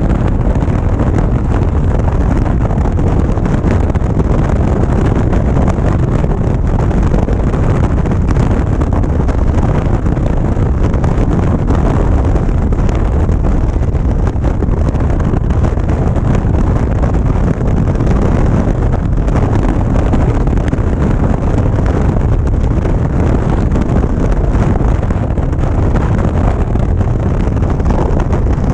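Steady rush of wind buffeting the microphone, mixed with the running V-twin engine and tyre noise of a Harley-Davidson Ultra Limited cruising at highway speed.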